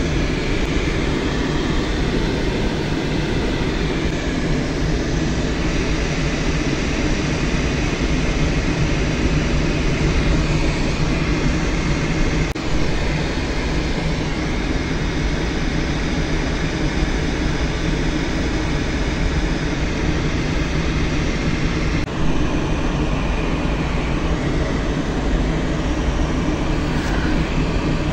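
Steady rush of airflow with a low drone inside a glider's cockpit in flight.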